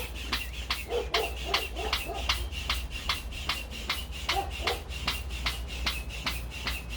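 Air pump being worked quickly to inflate a BOSU balance ball, about three to four strokes a second, each with a short puff of air.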